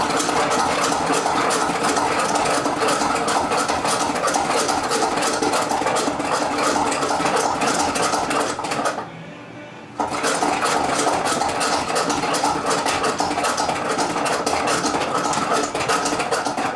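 Small electric motor of a spinning egg decorator whirring steadily with a fast, even buzz. It stops for about a second midway, then starts up again.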